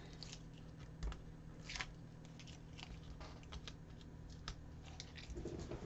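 Faint, scattered small clicks and crackles of fingers picking stray hot-glue strings off an MDF panel, over a low room hum.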